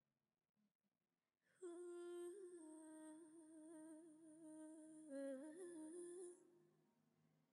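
A voice quietly humming a slow, wavering melody, coming in about a second and a half in and fading out near the end: the opening of a sung Swahili song.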